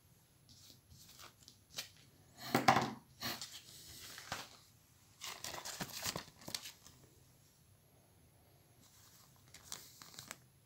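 Crinkling and rustling of a plastic fly-tying materials packet being handled, in several irregular bursts, the loudest about two and a half seconds in and another cluster near the end.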